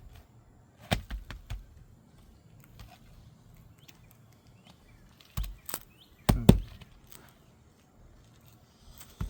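Several sharp knocks and taps of hand tools working on asphalt roof shingles, with the loudest knock about six and a half seconds in, as shingles are lifted to get at their nails.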